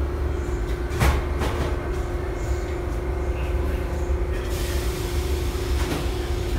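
Kawasaki-built R62A subway train running, a steady low rumble with a constant hum, with two sharp clacks about a second in and another near the end.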